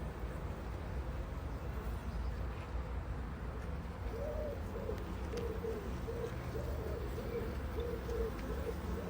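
Honeybees humming around an opened hive, with a bird's low hooting calls repeating in a run from about four seconds in.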